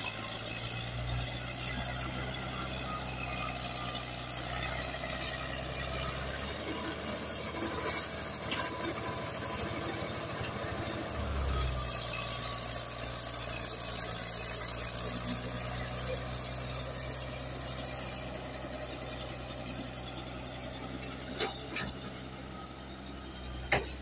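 Caterpillar D6D crawler bulldozer's diesel engine running under load as the blade pushes wet clay, its note shifting for a few seconds in the middle. A few short sharp knocks near the end.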